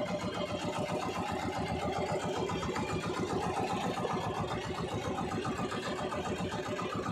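Small outrigger fishing boat's engine running steadily with a fast, even beat.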